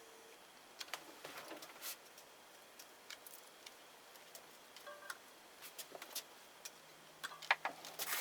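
Scattered light clicks and taps of handling, growing busier near the end, with a faint low hum underneath in the second half.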